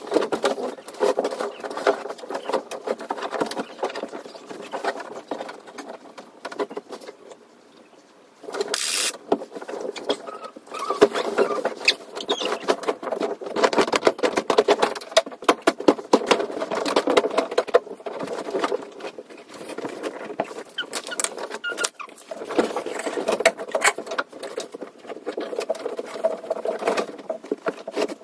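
Bed sheets and covers being handled and spread on a mattress: a dense, irregular crackling rustle of fabric, with a short hissing whoosh about nine seconds in.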